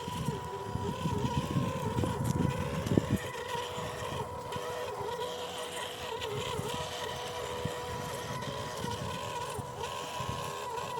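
MN128 1/12-scale RC crawler's 390 brushed motor and gearbox whining at a steady throttle as the truck drives along a trail, a steady high tone throughout. A rougher low rumble sits under it for the first three seconds or so.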